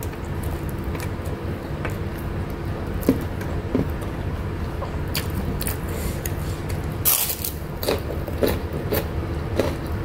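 Close-up eating sounds: a mouthful of rice and dendeng being chewed while fingers scrape and gather food on an enamel plate. Scattered small clicks, and a short hiss about seven seconds in, over a steady low hum.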